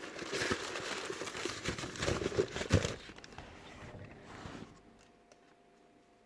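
Debris being rummaged through in a dumpster: plastic crinkling and rustling, with several sharp knocks of items being handled. After about three seconds it dies down to a faint steady hum.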